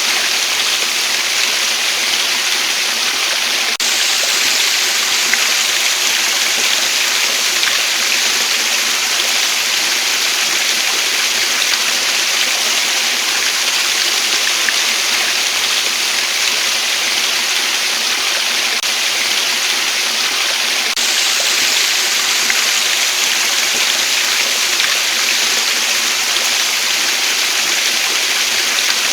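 Waterfall: a steady rush of falling water, with an abrupt slight shift in its tone about four seconds in and again about twenty-one seconds in.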